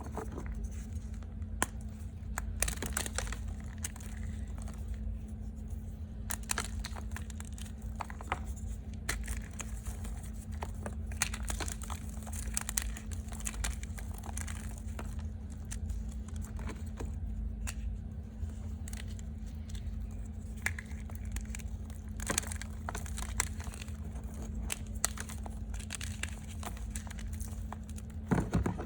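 Close-up crunching of reformed gym chalk being bitten and chewed: irregular crisp crackles and snaps, some sharper than others, over a steady low hum.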